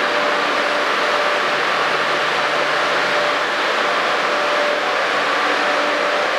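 Steady metro station platform noise: an even rush with a faint steady hum running through it.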